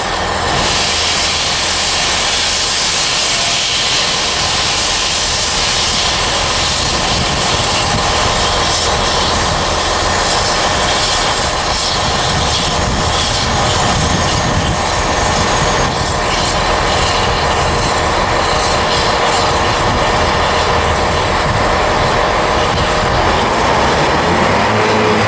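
GWR 5101 class 'Large Prairie' 2-6-2T steam locomotive moving slowly with its cylinder drain cocks open, giving a loud, steady hiss of escaping steam over a low rumble.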